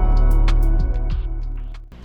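Background music: pitched notes with sharp attacks over a deep bass, fading out near the end.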